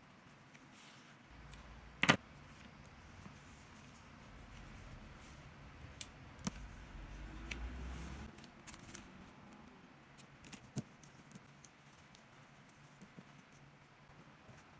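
Hands handling a crocheted granny-square slipper and working its yarn ends: faint rustling of yarn and fabric with a few sharp clicks, the loudest about two seconds in.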